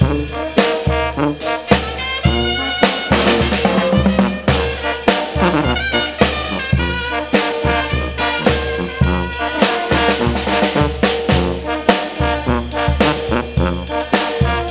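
Mexican brass band (banda) playing: trumpets, trombones and saxophones carrying the tune over a steady, pulsing bass and drum beat.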